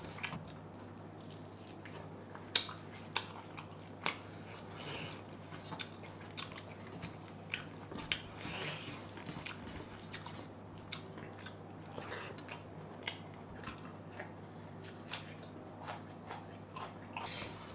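Eating fried rice and mutton curry by hand: faint chewing and mouth sounds, with scattered light clicks of fingers and food against a metal plate. Near the end, a crunchy bite of raw onion.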